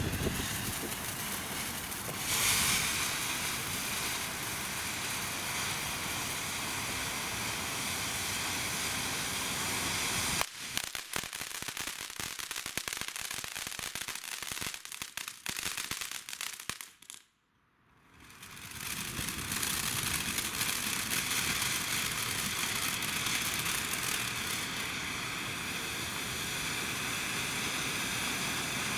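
TNT Frosty Night ground fountain firework hissing steadily as it sprays sparks. About ten seconds in it turns to dense crackling, falls almost silent for a moment a little past halfway, then hisses steadily again.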